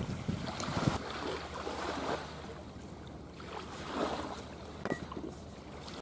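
Wind buffeting the microphone in gusts, with a few light clicks of a knife and fork on a wooden cutting board.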